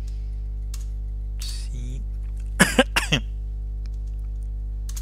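A person clears their throat and then coughs twice in quick succession, over a steady low electrical hum.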